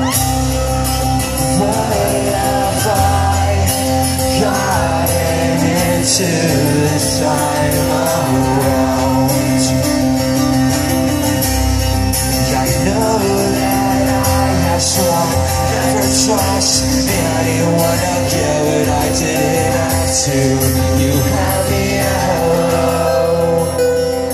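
A rock band plays an acoustic song live, with guitar and a male lead singer, recorded from within the concert crowd.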